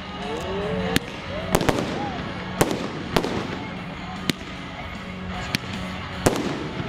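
Firework display: rockets bursting overhead in a string of sharp bangs, about eight of them at irregular intervals.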